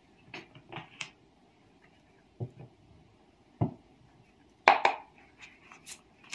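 Tarot card decks being handled on a cloth-covered table: a scatter of light taps and clacks as the cards are picked up, squared and set down, the loudest knocks coming about five seconds in.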